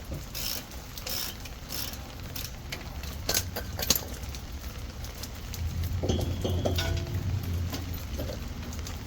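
Scattered metallic clinks and taps of a socket wrench on the hub's bolts and steel parts, as the inner hub bolts are loosened. A low steady hum comes in about halfway.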